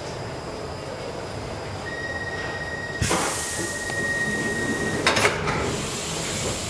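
Sliding doors of a Stockholm Metro C6 subway car starting to close: a steady high beep begins about two seconds in, a loud hiss starts suddenly a second later, and a clunk comes about five seconds in as the door panels move.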